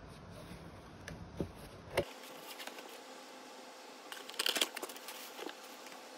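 Cardboard box and tissue paper being handled: a few light knocks of cardboard, then a brief crinkle of tissue paper about four seconds in.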